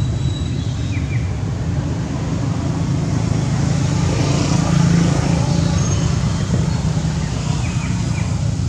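A steady low engine rumble with a few faint short chirps, one about a second in and another near the end.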